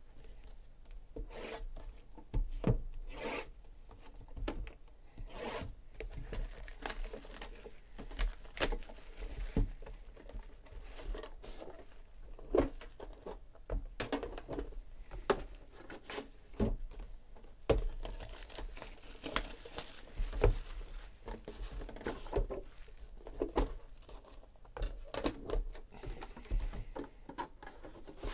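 Plastic shrink-wrap being torn and pulled off sealed Panini Immaculate card boxes, with the cardboard boxes and lids rubbing and sliding: a string of short scrapes, rustles and crinkles.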